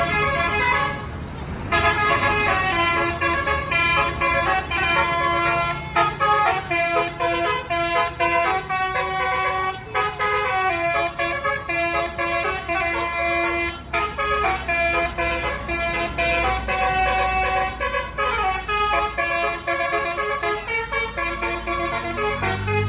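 Basuri, the Indonesian multi-tone "telolet" bus horn, playing a tune in a string of stepped horn notes, with a brief break about a second in.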